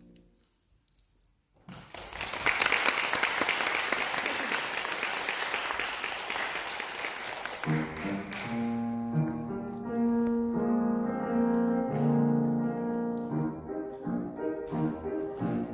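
Audience applauding for several seconds after a short silence; as the clapping dies away, about eight seconds in, instrumental music with long held notes begins.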